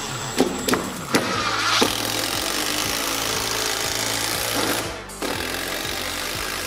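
Cordless drill running under load as it bores through a wooden guide block into a snowboard, with a few sharp clicks in the first two seconds and a brief let-up about five seconds in. Background music plays along with it.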